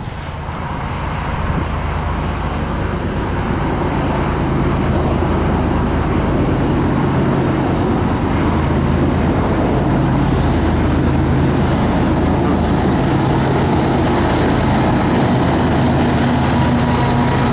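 Diesel-electric freight locomotives, a Ferromex GE ES44AC leading with a BNSF unit behind, running as they approach and pass close by. A steady low engine drone that grows louder over the first couple of seconds, then holds.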